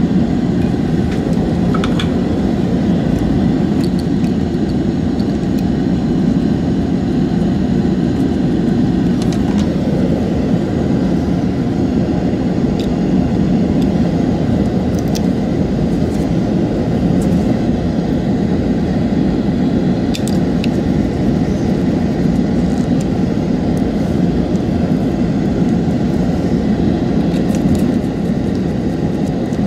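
Steady low hum, like a fan running, with a few faint small clicks now and then.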